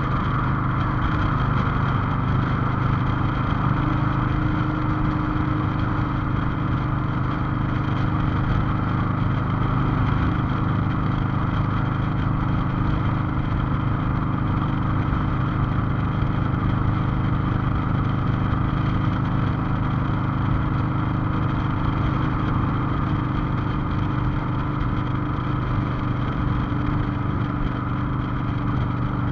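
Cruiser motorcycle engine running steadily while the bike is ridden at an even speed, a constant low drone with road and wind hiss over it.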